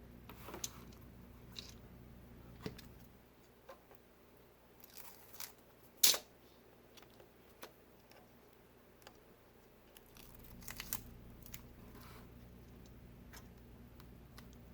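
Protective plastic liner being peeled off strips of screen adhesive and handled: scattered faint crinkles and small clicks, with one sharper click about six seconds in.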